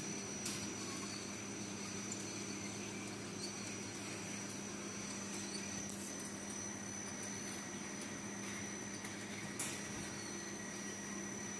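Automatic chapati and flatbread making machine running: its conveyor drive motors give a steady hum with a faint high whine, and two light clicks sound, one just after the start and one near the end.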